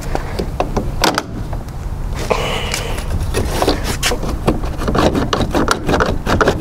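Plastic clicks and rattles from a Ford Fiesta's plastic honeycomb front grille as its retaining clips are pried and pulled by hand, a quick irregular run of sharp ticks that grows busier partway through. A steady low rumble sits underneath.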